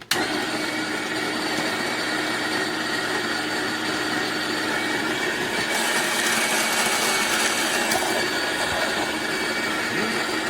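Fellow Opus electric conical burr coffee grinder switching on abruptly and running steadily as it grinds coffee beans, a dense whirring hum with a steady whine in it. The sound grows slightly harsher for a couple of seconds around the middle.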